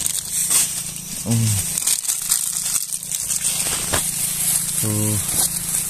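A plastic packet crinkling and rustling as it is handled, with two short murmurs from a voice.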